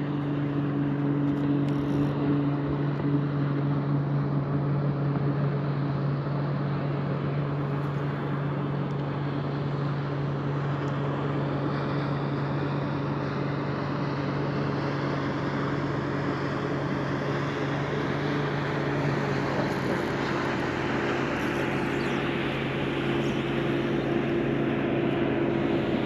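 A bass boat's outboard motor running steadily on the lake, over a wash of wind and water noise. Its pitch rises slightly about twenty seconds in.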